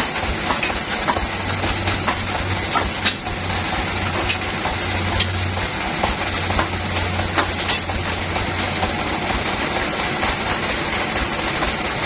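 Band sawmill machinery running with a steady rattle and scattered clicks and knocks; a low hum comes in about a second in and drops away about three seconds before the end.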